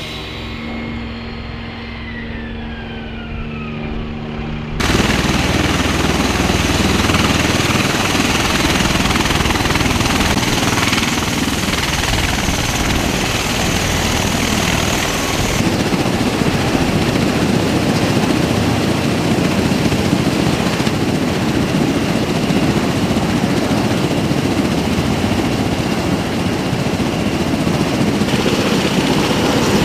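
MV-22B Osprey tiltrotors on the ground, their twin turboshaft engines and proprotors running. For about five seconds there is a quieter steady hum with a whine falling in pitch; then the sound jumps to a loud, dense, steady wash of engine and rotor noise.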